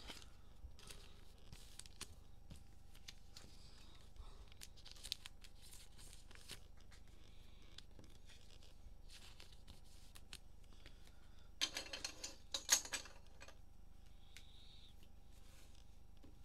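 Faint rustling and clicking of trading cards and cellophane card-pack wrappers being handled, with a short cluster of louder crinkling rips of the plastic wrapper about twelve seconds in.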